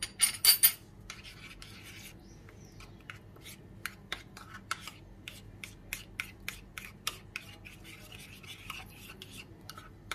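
Metal spoon stirring a thick oil-and-yogurt spice sauce in a ceramic bowl, scraping and clicking against the sides. A few loud clinks at the start, then softer scraping with many light ticks.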